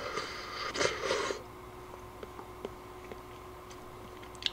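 Slurping ramen broth from a ladle: a noisy slurp about a second and a half long, in two pulls, at the start. A few faint clicks follow.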